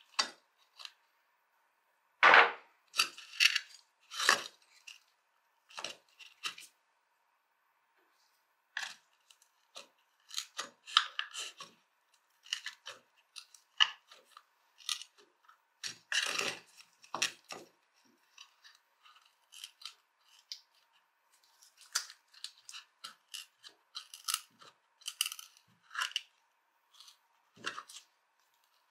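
Small screwdriver scraping and prying at a rusty tobacco cutter on a wooden board: irregular short scrapes and clicks of metal on rusty metal, with occasional knocks. The loudest scrapes come about two seconds in and again about halfway through.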